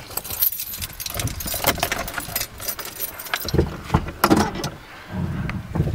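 A bunch of keys jangling and clinking in irregular bursts, with a few small knocks of handling.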